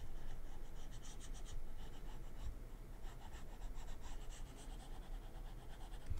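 Stylus nib scratching across a drawing tablet in quick, repeated shading strokes, coming in short flurries.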